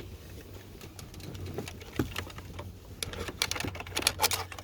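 Irregular light clicks and taps from hands working the wires and small parts through the door jamb, coming thicker and faster about three seconds in, over a low steady hum.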